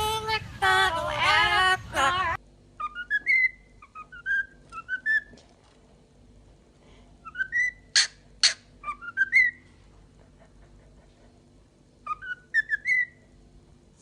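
A parrot whistling short rising phrases of three or four quick notes, each ending on a held note, in three bursts, with two sharp clicks between the middle bursts. In the first two seconds, a voice-like singing call cuts off abruptly.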